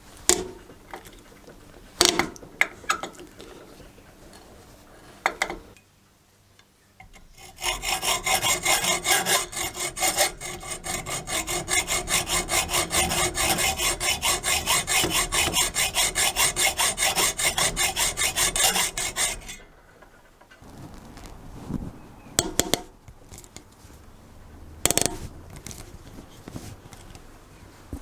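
Rust being scraped off a steel cement groove tool by hand. There is a run of rapid, even back-and-forth strokes for about twelve seconds, with a few sharp knocks of the tool being handled before and after it.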